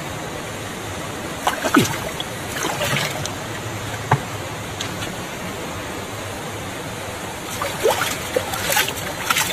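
Water splashing and dribbling in a cracked plastic bucket as fish are handled in it, in two short bursts, over a steady rush of running water.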